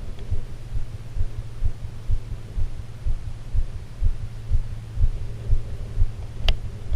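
Low, uneven thumping rumble, a few thumps a second, with one sharp click near the end.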